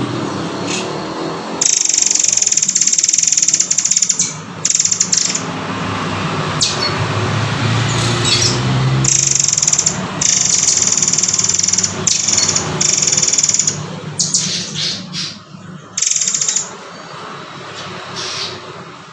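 Recorded song of a murai air (murai kopi) songbird: long, high, rasping trills broken by shorter calls, over a steady low hum.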